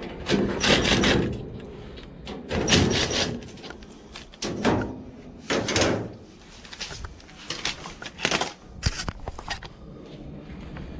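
Sheet-metal panel of a clothes dryer being worked loose and pulled off, in several short scraping, rattling bursts, with a sharp click about nine seconds in.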